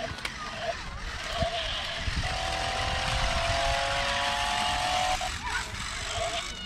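Small electric motors of a toy remote-control monster truck whirring, with a steady whine from about two to five seconds in.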